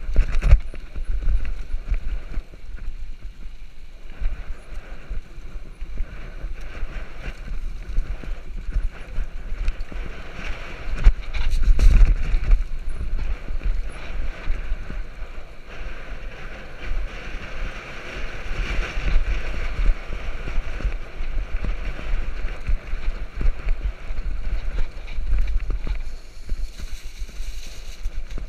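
Mountain bike descending a rough dirt track: tyres rolling over dirt and the bike rattling and knocking over constant bumps, with wind buffeting the microphone. A run of harder jolts comes about twelve seconds in.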